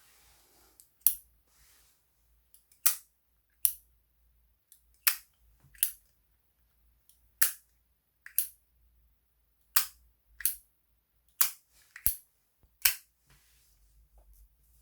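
Zippo windproof lighter's hinged lid being flipped open and snapped shut over and over: about a dozen sharp clicks, coming roughly in pairs about a second apart.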